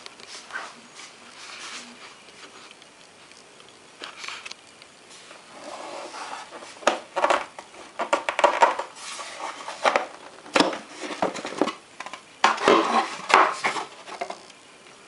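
The magnet-held hatch cover of a radio-controlled model being lifted off and pressed back on: quiet handling and rubbing, then clusters of sharp clacks and knocks as the cover snaps against its magnet catches and the model's body.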